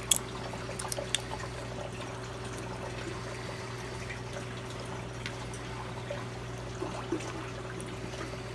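Water trickling steadily in a nano reef aquarium over a steady hum from its pump, with a few sharp clicks in the first second or so.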